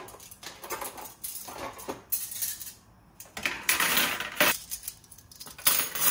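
Stainless steel kitchenware being handled: a series of metallic clinks and scrapes, with a longer scraping stretch a little past halfway.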